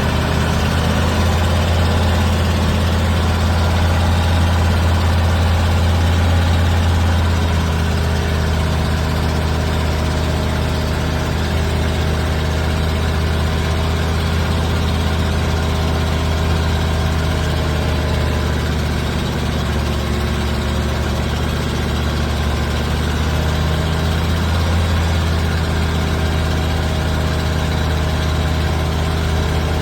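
Heavy diesel engine running at a steady idle: a deep, even hum.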